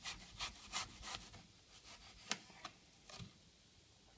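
Kitchen knife sawing through a crisp apple in quick rasping strokes, about three a second, for the first second or so. This is followed by a sharp tap about two seconds in and a softer knock near three seconds as the cut goes through and the pieces meet the plastic cutting board.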